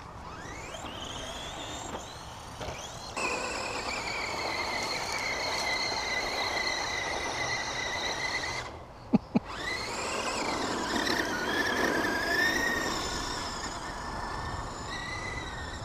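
Redcat Racing Volcano EPX radio-controlled truck's electric motor and gears whining: rising in pitch as it accelerates, then holding a steady high whine. About nine seconds in the whine cuts out and two sharp knocks are heard, then it rises again.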